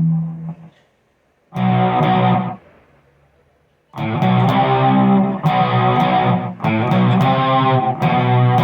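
Electric guitar playing chords: a held chord dies away, a short chord sounds after a brief silence, and after another near-silent gap a run of rhythmic strummed chords begins about four seconds in.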